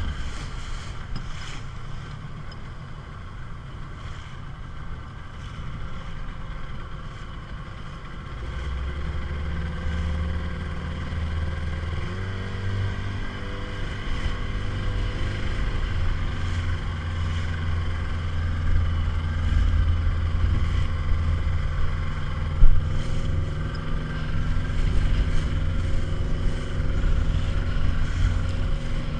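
Small motorboat's engine running under way, growing louder about a third of the way in as it picks up speed. One sharp knock stands out near the end.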